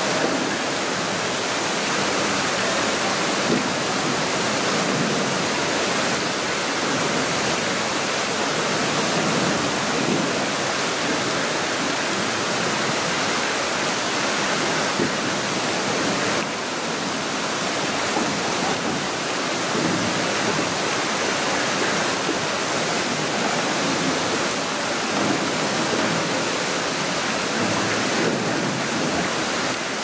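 Manai Falls, a waterfall plunging into the Gokase River gorge, giving a steady rush of falling water. The rush changes slightly in tone about sixteen seconds in.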